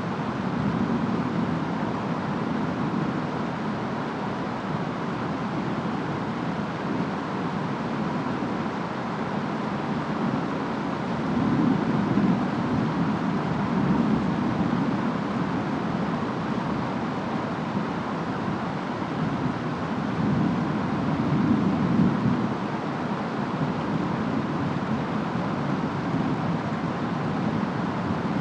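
Steady rainstorm with wind, a dense even rushing hiss, swelling into a deeper low rumble twice, about two-fifths of the way in and again about three-quarters through.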